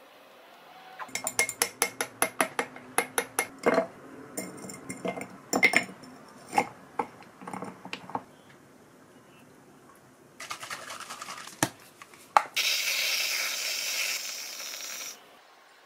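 A long spoon stirring fast in a glass, clinking against the sides, followed by scattered clinks against the glass. Near the end a whipped-cream aerosol can hisses steadily for about two and a half seconds and cuts off.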